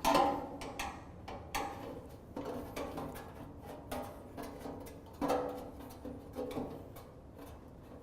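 Background music of plucked string notes in a light, bouncy rhythm.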